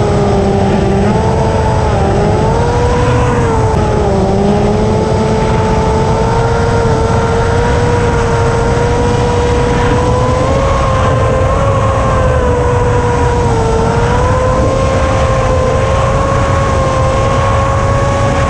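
Flinch FPV flying wing's electric motor and propeller whining steadily at high throttle, its pitch dipping briefly now and then and slowly creeping upward, over a heavy rush of wind on the onboard camera's microphone.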